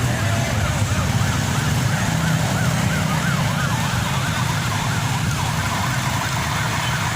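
A siren yelping, its pitch sweeping quickly up and down several times a second, over the steady low rumble of vehicle engines in stalled traffic.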